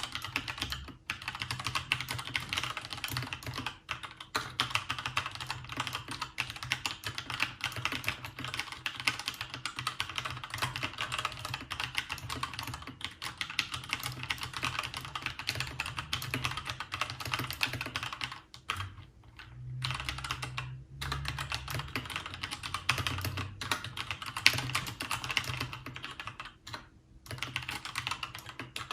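Fast, continuous typing on a Keychron K2 mechanical keyboard with Gateron switches: rapid key clicks, with a few brief pauses in the second half.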